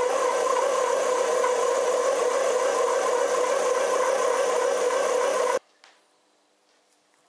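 An old bread machine's motor, its heating elements removed so it works as a dough mixer, runs at high speed with a steady whir and hum as it kneads brioche dough. It cuts off suddenly about five and a half seconds in, leaving near silence.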